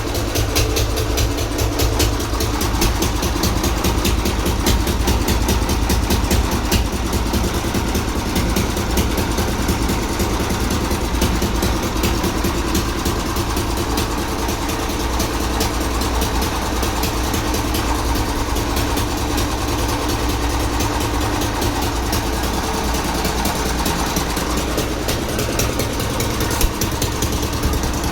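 Old diesel engine running steadily at idle, a rapid, even beat of exhaust pulses with a deep low end.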